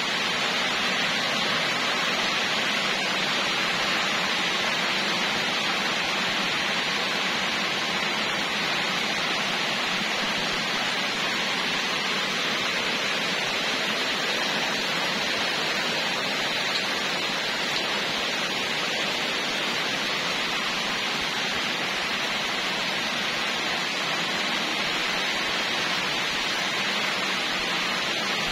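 Steady rain falling, an even, unbroken hiss that holds the same level throughout.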